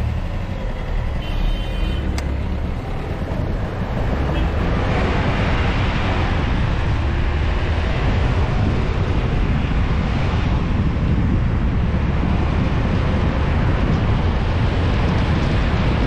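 A moving car's engine and road rumble, with a short horn beep about a second in. From about five seconds in, a steady rush of wind and tyre noise on the outside-mounted camera's microphone takes over as the car runs along the open highway.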